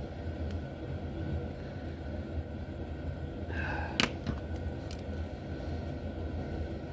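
Small parts and tools being handled while an HO slot-car motor is taken apart: a short squeak, then a sharp click about four seconds in and a lighter click a second later, over a steady low hum.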